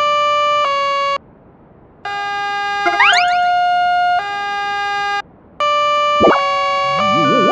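Synthesized siren-like alternating-tone warning sound of a cartoon railway level crossing, changing pitch about once a second. It has quick pitch sweeps near the middle and near the end, and cuts out briefly twice.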